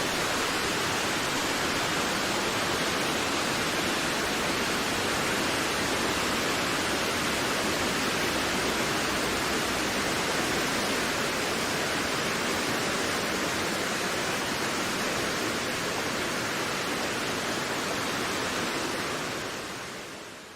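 Wind blowing steadily, an even hiss with no breaks, fading out near the end.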